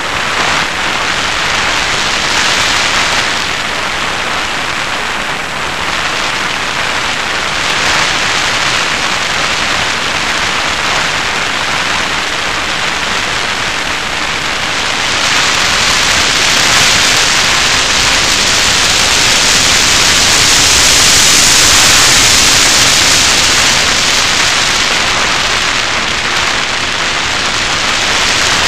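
Steady, loud rushing hiss of air streaming over the onboard camera of an FPV Raptor model plane in flight. It grows louder and brighter about halfway through, then eases off again near the end.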